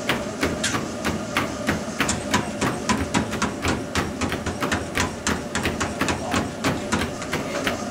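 Running shoes striking the belt of a motorized sprint treadmill at about three footfalls a second, over the steady hum of the running treadmill.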